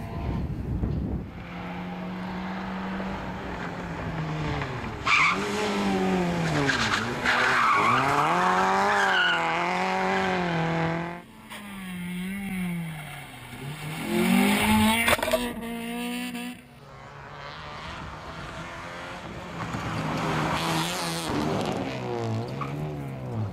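Cars driven hard through a tight tarmac course, engines revving up and dropping back again and again between bends, with tyres squealing. The sound switches abruptly between different cars a few times.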